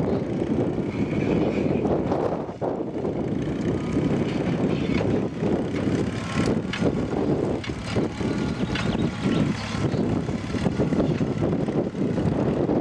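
Massey-Harris Pony tractor's small four-cylinder engine running steadily under load while pulling a single-bottom mounted plough through grassland.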